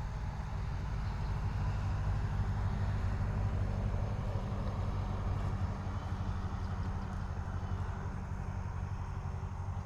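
An engine running steadily with a low hum that grows a little louder for a few seconds in the middle.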